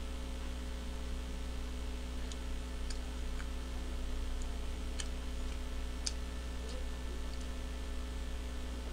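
Steady electrical mains hum on a boosted microphone, with a few faint, scattered clicks of chewing as a bite of hamburger is eaten.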